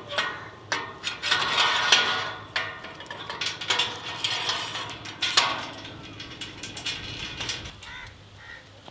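Metal pipes scraping and clanking against a steel frame as they are slid into its sockets, metal on metal, with a run of sharp knocks; the loudest knock comes about five and a half seconds in.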